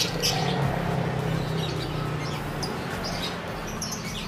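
Many caged lovebirds and canaries chirping, short high calls scattered throughout, over a steady low hum.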